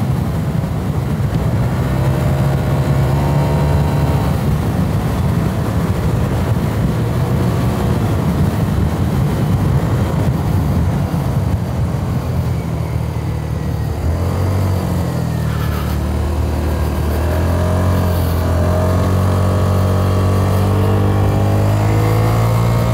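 Italjet Dragster 125 scooter engine running on the move, with wind and road noise. Its pitch drops about four seconds in as the rider eases off, and climbs steadily again over the last several seconds as it accelerates.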